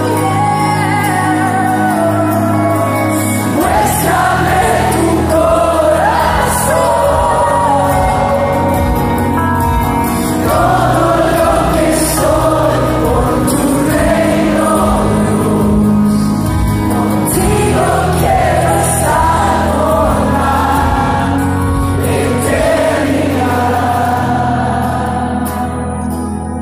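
Live Christian worship music: a band with acoustic guitar and keyboards, and many voices singing together, recorded from within the audience. The low end fills out about three and a half seconds in as more of the band comes in.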